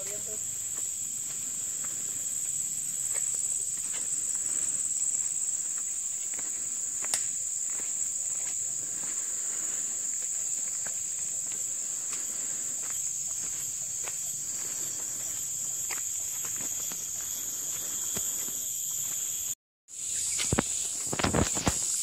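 Steady high-pitched drone of forest insects with soft footsteps on a dirt trail. After a brief break near the end, the footsteps come louder and closer.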